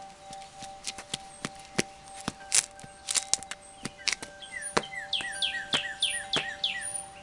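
Songbirds chirping, with a quick run of short falling chirps, about four a second, in the second half. Scattered sharp clicks and taps are heard throughout.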